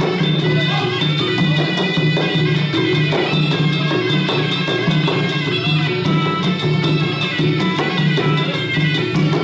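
Traditional Khmer boxing ring music: a reed-wind melody held over a steady drum rhythm and small cymbals, playing without a break.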